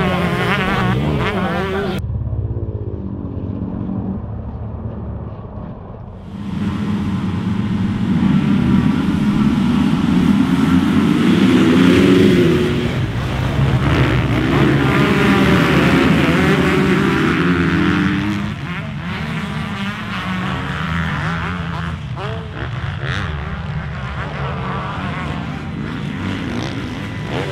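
Motocross dirt bikes racing on a dirt track, engines revving up and down through the gears as they pass. The loudest part comes in the middle, when two bikes go by together, and the sound is quieter near the end.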